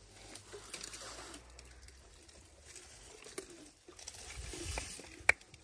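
Small plastic sample container and its cap handled in gloved hands: soft rustling and small clicks, with one sharp click near the end.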